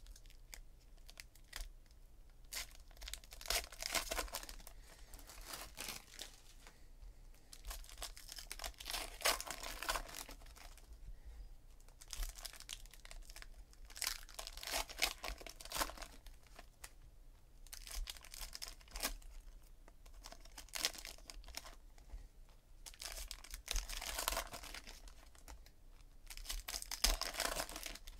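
Foil trading-card packs of 2017 Donruss Optic Baseball being torn open and crinkled by hand. The crinkling comes in repeated uneven bursts every second or two, over a faint low hum.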